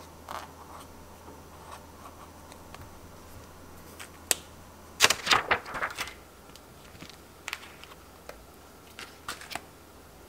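Clear stamps on their plastic backing sheet being handled: a burst of crackling and clicking about five seconds in as the sheet is picked up, then scattered sharp clicks as a stamp is peeled off.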